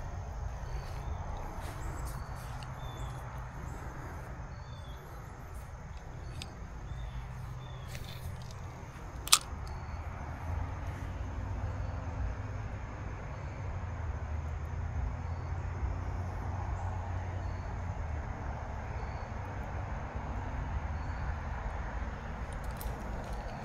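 Creekside outdoor ambience: a steady low rumble with faint short high chirps repeating about once a second. One sharp click stands out about nine seconds in.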